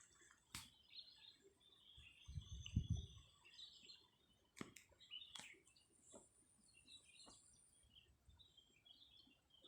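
Faint chirping of small birds, with a few sharp clicks and a brief low rumble about two and a half seconds in.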